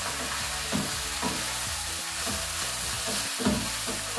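Chopped fennel sizzling in olive oil in a frying pan as it is stirred with a spatula, a steady hiss broken by a few soft scrapes of the utensil against the pan.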